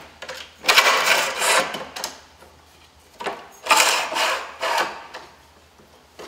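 Aluminium kitchen support legs scraping and rattling along the camper kitchen's bench top as they are laid and slid into place. There are two rasping scrapes, each about a second and a half long, one near the start and one around the middle.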